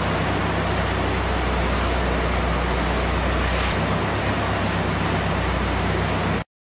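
Dyno-room noise: a steady, loud rush of air over a low, steady hum. The hum shifts lower a little under four seconds in, and the sound cuts off abruptly near the end.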